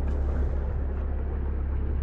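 Muddy stream water rushing through a breached beaver dam, over a steady low rumble.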